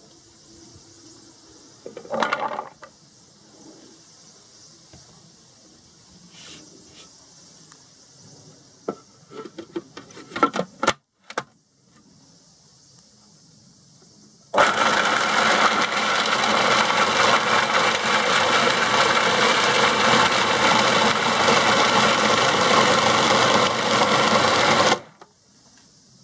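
A few knocks and clatters in the first half, then a Robot Coupe R3 1500 cutter mixer is switched on and its motor runs with the bowl empty for about ten seconds, a loud steady whirring that cuts off suddenly when it is stopped.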